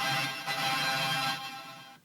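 Circuit-bent toy sound effects machine giving out one buzzy electronic tone with many overtones, which holds steady and then fades out over the last half second.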